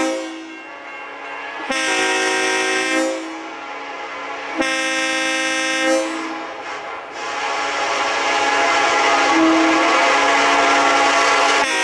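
Horn of a Norfolk Southern EMD SD70 diesel locomotive blowing a series of separate blasts for a grade crossing. The last blast is held for about five seconds, louder, over the growing rumble of the approaching train.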